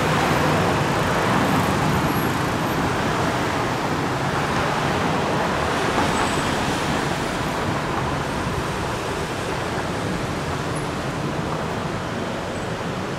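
Steady rumble of vehicle noise that slowly fades.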